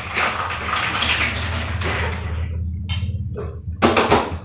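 Close-up eating sounds: a mouthful of rice and vegetable soup being chewed and slurped wetly, then a few short clinks of a spoon on a dish near the end.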